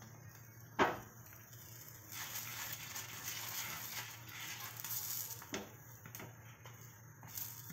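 Oil sizzling under a stuffed paratha in a hot pan as it is oiled on its second side. A sharp utensil clink comes about a second in, the sizzle swells through the middle, and a few light taps follow near the end.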